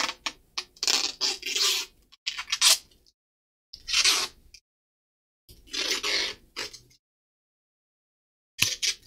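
Small repair tools scraping and clicking against an opened smartphone's frame and circuit board, in four short bursts with quiet gaps between.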